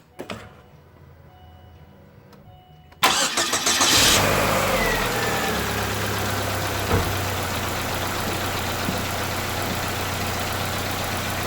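Chevrolet Lacetti's 1.8-litre four-cylinder petrol engine cold-started: about three seconds in it cranks briefly and catches with a short rev flare. It then settles into a steady idle, the revs easing down as it settles.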